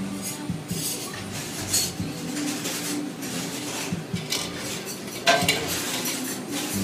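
Kitchenware clinking and clattering: cutlery and dishes knocked together in a run of irregular clinks, with one louder clatter about five seconds in.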